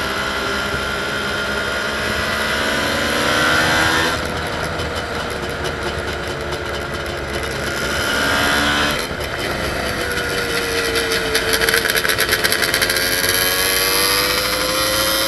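Suzuki GT 750's water-cooled three-cylinder two-stroke engine running hard on track, heard from on board. Its pitch climbs and then drops suddenly twice, about four and nine seconds in, then climbs again.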